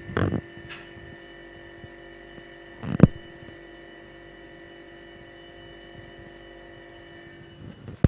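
Refrigerator compressor running with a fairly quiet, steady hum, the sound of a compressor working normally. A single sharp knock sounds about three seconds in.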